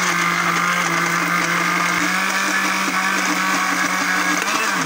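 Electric blender grinding garlic and ginger with a little water and oil into paste, its motor running with a steady whine. Near the end it is switched off and the pitch falls as the motor winds down.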